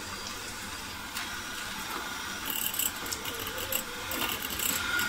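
Electric hand mixer running, its twin beaters whipping room-temperature butter in a bowl to cream it: a steady motor whir, with irregular clicks joining from about halfway.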